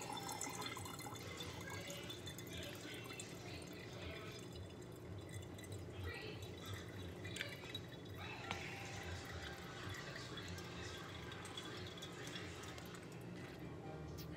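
Wet slurping and sucking sounds as a jelly snack is sucked out of its small plastic cup, with irregular small squishes and clicks.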